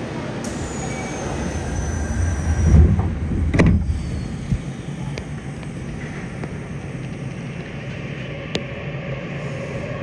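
Subway train doors sliding shut and closing with a thud about three and a half seconds in, over the steady hum of the stopped train. Near the end, the Mitsubishi IGBT-VVVF inverter of the 3000R train begins its rising whine as the train starts to pull away.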